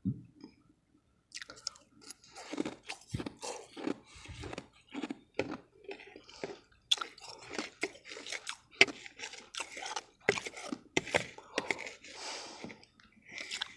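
Refrozen powdery ice being bitten and chewed right at the microphone: dense, irregular crunching that starts about a second in. A single knock comes at the very start.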